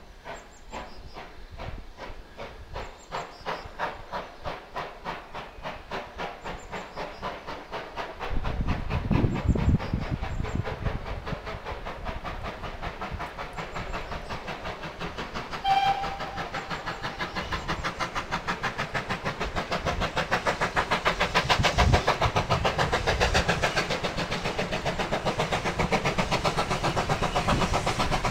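GWR 0-6-2T steam tank locomotive No. 5643 approaching under steam, its exhaust beats coming in a quick, even rhythm that grows louder as it nears. A deeper rumble joins about a third of the way in, and there is one short whistle toot about halfway through.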